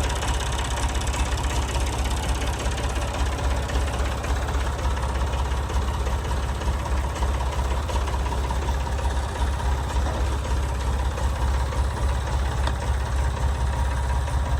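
Old Massey Ferguson tractor's engine running steadily as it pulls a potato plow on its first pass to mark the trench line.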